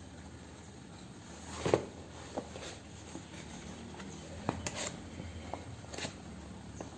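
Light handling of an open paperback textbook: a few soft taps and short paper rustles, the loudest about two seconds in and a cluster near the end, over a low steady hum.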